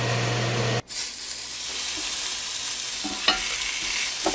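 Ninja Foodi Grill's fan running steadily with a low hum for just under a second, then, after a sudden cut, lamb chops sizzling on the hot grill grate. A couple of sharp clicks from the tongs on the grate come near the end.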